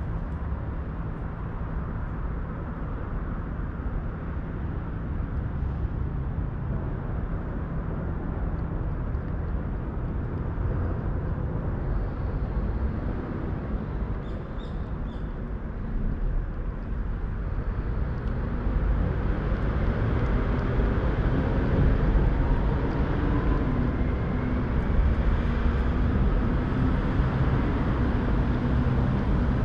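Steady low rumble of distant city traffic, growing somewhat louder about two-thirds of the way through.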